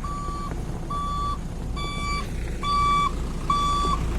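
Heavy-equipment travel alarm beeping in a steady pattern, five half-second beeps a little under a second apart. Under it runs the low rumble of a diesel engine, and the whole thing gets somewhat louder partway through.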